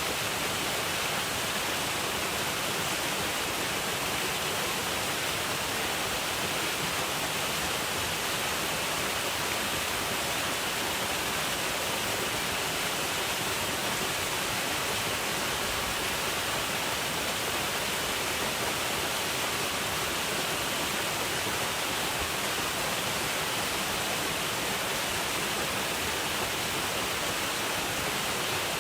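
Waterfall: water falling and splashing in a steady, unbroken rush, strongest in the high range.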